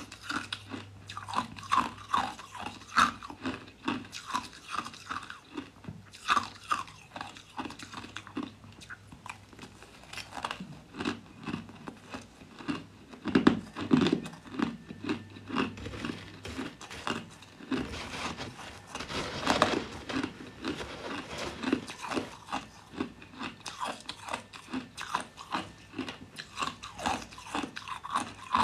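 Crushed ice being bitten and chewed: a dense, uneven run of sharp crunches, with a few louder bites.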